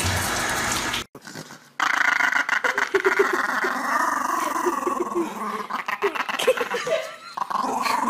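A dog making a drawn-out, wavering growly vocalization whose pitch rises and falls, after about a second of running tap water and a short pause.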